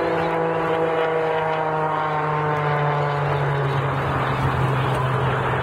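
Red Team Oracle aerobatic biplane's piston engine and propeller droning overhead. The pitch slides slowly lower as the plane pulls up and climbs away.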